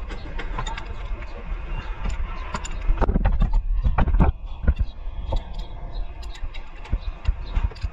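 Hand tools clinking and knocking on metal bolts and suspension parts under a car, in irregular sharp taps. A louder, busier run of knocks comes about three to four seconds in.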